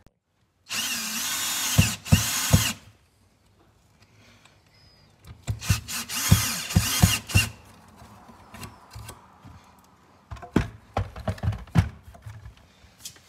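Cordless drill driving screws through a plastic PVC snap clamp into a wooden wall, in two runs of about two seconds each, its motor whine rising and falling, with sharp knocks as the screws seat. Near the end, a quick series of plastic clacks and knocks as a rip stick board is pushed and snapped into the clamp.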